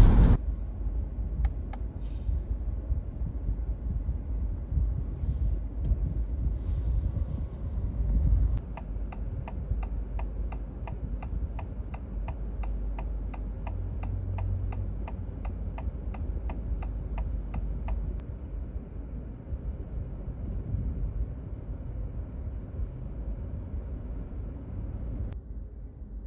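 Honda Civic e:HEV turn-signal indicator ticking steadily inside the cabin, a couple of ticks a second. It starts about nine seconds in and stops about nine seconds later, over a low cabin rumble.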